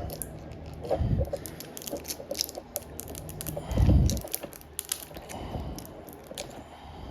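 Scattered small clicks and taps of tools against plastic and metal phone parts during smartphone disassembly, with a dull thump about a second in and another, louder one about four seconds in.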